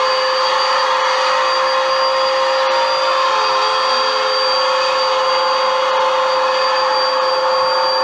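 Bagless upright vacuum cleaner running steadily on carpet: a loud, even rush of suction with a constant motor whine, unchanged throughout.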